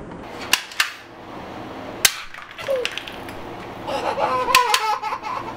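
Sharp clicks of a plastic toy rifle being handled: two close together about half a second in and one more about two seconds in. Then, from about four seconds in, laughter with voices rising and falling in pitch.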